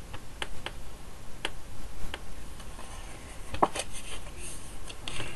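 Hands handling and folding a paper card on a tabletop: scattered light taps and clicks, a louder knock about three and a half seconds in, then a brief rustle of paper as the fold is creased.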